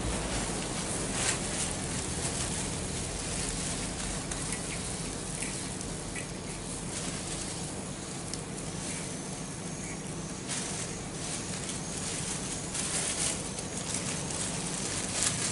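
A wok of fish stew in sweet soy sauce simmering and sizzling over a charcoal fire: a steady hiss with scattered crackles.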